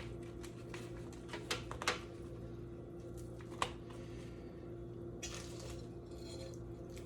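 Kitchen handling sounds: a few light clicks and clinks of dishes and containers, then a brief rustle about five seconds in, over a steady low electrical hum.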